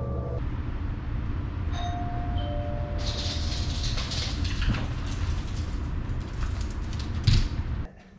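Steady low engine rumble of an idling vehicle, with a two-note doorbell chime, the second note lower, about two seconds in. The rumble cuts off suddenly near the end.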